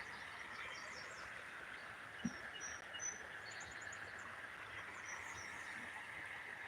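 Faint outdoor summer ambience: a steady high insect drone with a few short bird chirps, and one soft tap a little past two seconds in.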